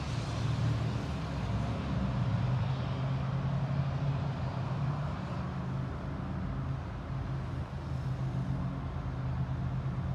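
Highway traffic, cars and trucks driving past, over a steady low engine hum.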